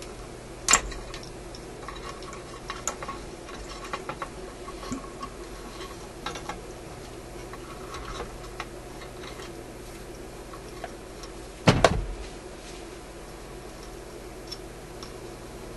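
Irregular small clicks and taps of pliers and wires being handled against a metal tube-radio chassis, with a louder clatter about twelve seconds in, over a low steady hum.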